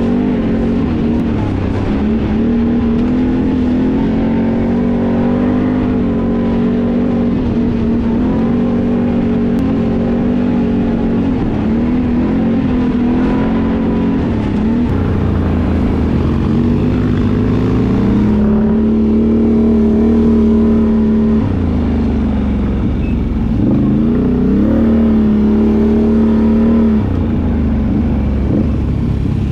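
Can-Am Outlander ATV engine running at speed along a dirt trail, its note dipping and rising again several times, with tyre and trail noise under it.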